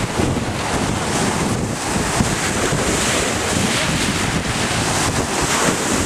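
Small sea waves breaking and washing up the shore in a steady rush, with wind buffeting the microphone.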